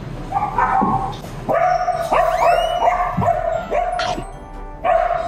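Dogs yipping and whining in several short falling cries, over background music with a steady held note.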